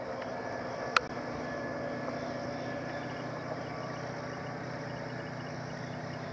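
A steady low mechanical hum with a faint hiss, broken once by a single sharp click about a second in.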